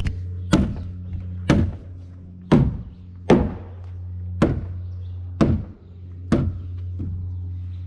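Heavy blows struck into timber about once a second, eight strikes with the last one lighter, as when a timber-frame joint is driven home with a mallet. A steady low hum runs underneath.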